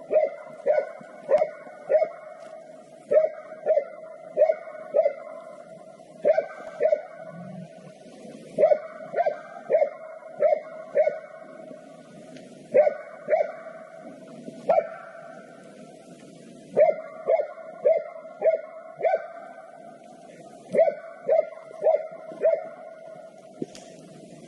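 A hunting laika barking steadily in runs of quick, evenly pitched barks, about two a second, with short pauses between runs. This is the sustained baying a laika gives when it holds a wild boar at bay.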